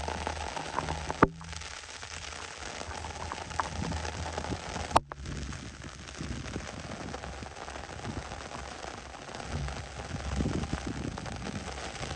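Steady rain falling on tall prairie grass, a fine even patter with scattered small drop ticks. Two sharp clicks stand out, one about a second in and another about five seconds in.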